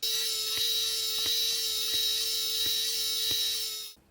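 Battery-powered toy hair dryer's small fan motor running, a steady whine over an airy hiss with faint ticks, starting suddenly and stopping just before the end.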